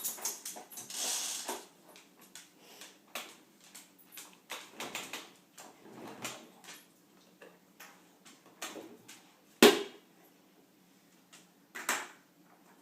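Toy lawnmower being played with: irregular clicks, rattles and knocks, with a sharp knock about ten seconds in and another shortly before the end.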